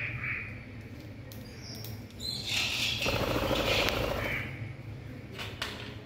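Black-capped lory calling: a brief higher call right at the start, then a loud, harsh screech about two seconds in that lasts roughly two seconds.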